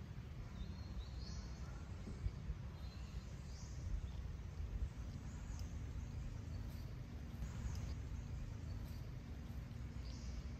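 Outdoor ambience: a steady low rumble with about five faint, brief, high rising chirps scattered through it.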